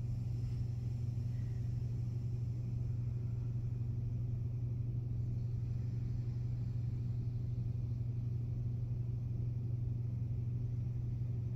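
A steady low hum that runs without change.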